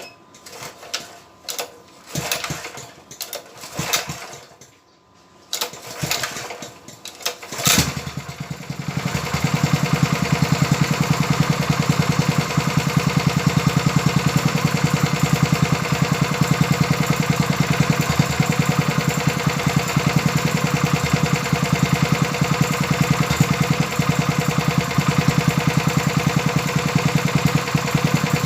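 Honda GX160 single-cylinder four-stroke engine: a few irregular knocks and rattles, then the engine starts about eight seconds in and runs steadily with an even rapid beat.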